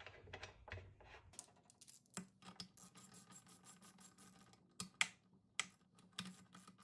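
Ratchet wrench clicking in quick, faint runs as a bolt is run down to draw the crankcase cover onto a Briggs & Stratton engine. The clicking starts about two seconds in, with a few louder clicks near the end.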